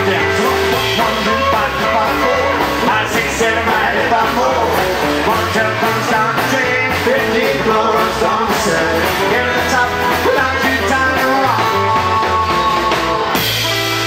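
Live band playing rock and roll on electric guitar, acoustic guitar, upright bass and drums, moving to a held chord near the end.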